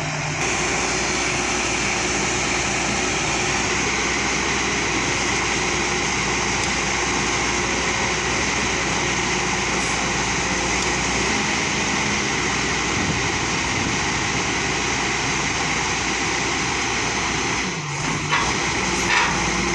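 JCB excavator's diesel engine running steadily under load. A few short knocks come near the end.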